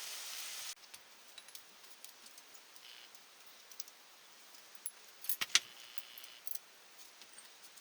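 Steady hiss of heavy rain that cuts off abruptly under a second in, followed by light metallic clinks and jingles of small metal parts and tools being handled, with a sharp cluster of clinks about five and a half seconds in.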